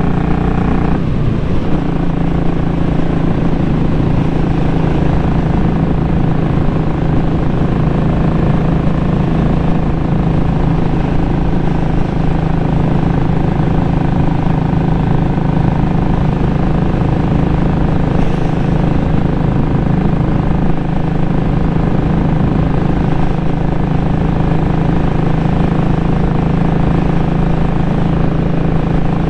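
2017 Royal Enfield Classic 500's single-cylinder engine and exhaust note at a steady cruise, recorded on the moving bike. The note changes pitch about a second in, then holds steady.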